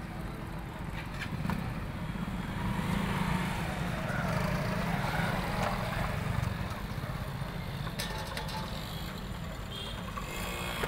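Motor scooter and motorcycle engines running as the bikes ride along a dirt path, a steady low rumble that grows louder for a few seconds in the middle.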